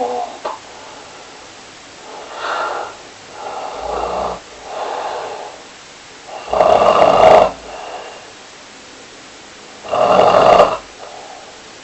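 Snoring: a run of separate snores, softer ones in the first half and two much louder ones, each about a second long, around six and a half and ten seconds in.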